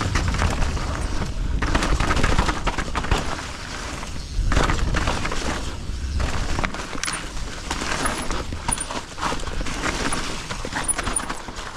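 Mountain bike ridden down a rooty, leaf-covered forest trail: tyres rolling over leaves and roots, with frequent knocks and rattles from the bike and a steady low rumble.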